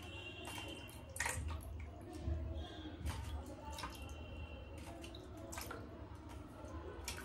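Water dripping and splashing as an aloe vera leaf is rubbed and rinsed in a steel bowl, with a few sharper splashes scattered through.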